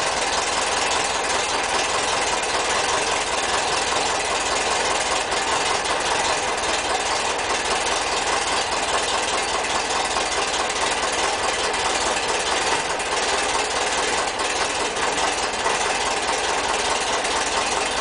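Air-cooled Volkswagen flat-four engine idling steadily.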